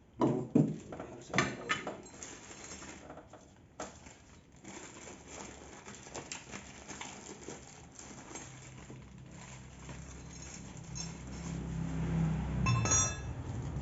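Small metal parts and tools clinking and knocking as they are handled, with a cluster of sharp knocks in the first two seconds and a ringing metallic clink near the end. A low hum builds in the last few seconds.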